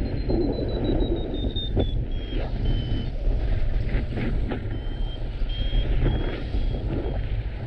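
Strong wind buffeting the microphone, with a paragliding variometer sounding over it: a high tone that slowly falls over the first two seconds, then short high beeps stepping between a few pitches.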